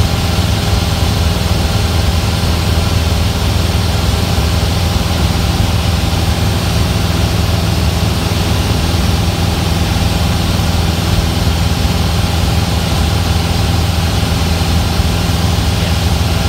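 Single-engine Cessna's engine and propeller running steadily in level flight, heard inside the cabin, with a steady rush of air noise over it.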